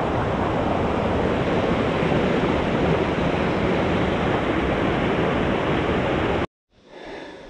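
Heavy rain pouring, a loud, steady rushing hiss that cuts off abruptly near the end, followed by faint, quieter outdoor sounds.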